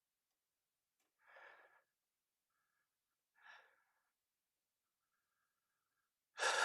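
Near silence broken by two faint, soft breaths, and a louder, sharp intake of breath just at the end.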